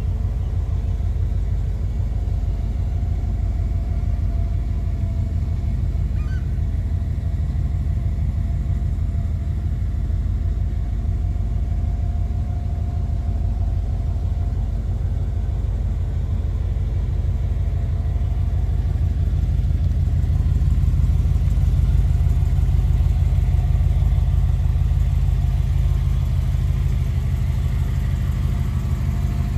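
1959 Chevrolet Impala hardtop's engine idling steadily with a deep rumble, a little louder for a few seconds about two-thirds of the way through.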